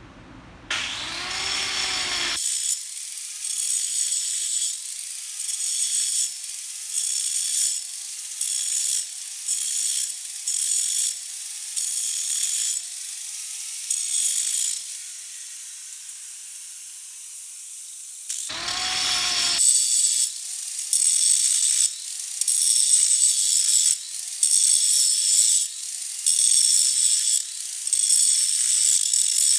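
Grinder working the crack out of a hydraulic cylinder's steel tube, grinding in short, rhythmic passes about once a second with a quieter pause around the middle. It is chasing the crack down so it can be welded.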